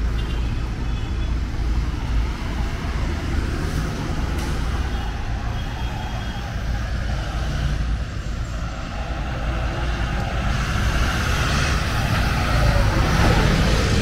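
Road traffic on a busy city avenue: steady low engine rumble and tyre noise from passing cars, buses and trucks. The noise grows louder over the last few seconds as a heavy truck approaches.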